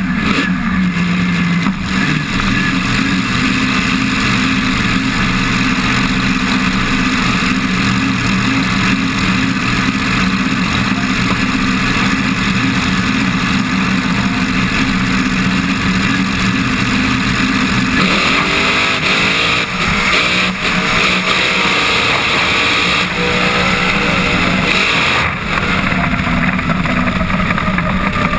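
Supercharged V8 of an altered drag car idling steadily on the start line, then launching at full throttle about two-thirds of the way in, its pitch sweeping up through the run. Near the end the engine note falls away as it shuts off.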